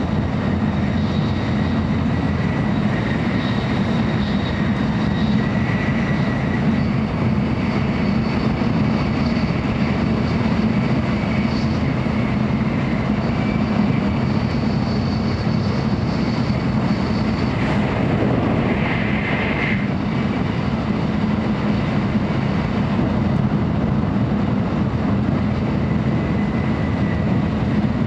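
Interior running noise of a JR Central N700A Shinkansen travelling at speed: a steady low rumble under a rushing hiss, with faint high steady tones above it. A brief brighter hiss rises about eighteen seconds in.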